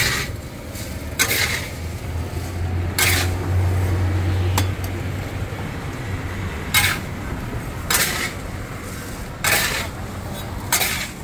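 Chestnuts and hot roasting sand scraped and turned in a large iron wok by a metal spatula, in about six separate gritty strokes a second or more apart. A low hum from traffic runs underneath for a few seconds in the middle.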